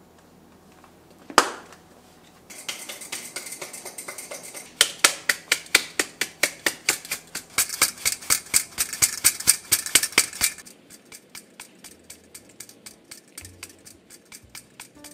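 A utensil working rapidly in a mixing bowl, clicking about four times a second: loud through the middle, fainter for the last few seconds. A single sharp knock comes first, about a second and a half in.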